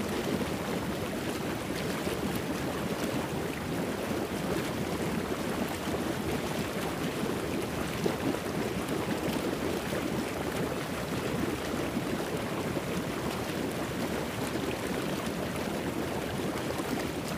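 Steady rushing noise like surf or running water, even and unbroken, with no rhythm or distinct events.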